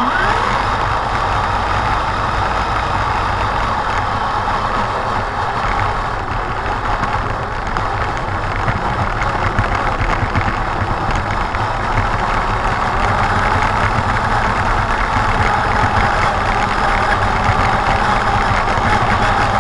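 Radio-controlled truck's motor and drivetrain running steadily under load, heard up close from a camera riding on the rig during a truck pull, with a stronger whine that drifts slightly lower near the end.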